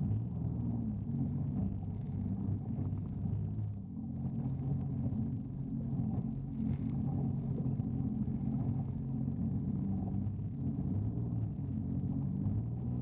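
Jet ski engine running steadily under way, a low drone that wavers a little in pitch and dips briefly about four seconds in.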